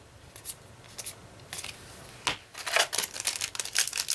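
Yu-Gi-Oh trading cards being slid and flicked against each other as a stack is sorted, a few sharp clicks, then from about two seconds in a dense crinkling of a foil booster-pack wrapper being handled.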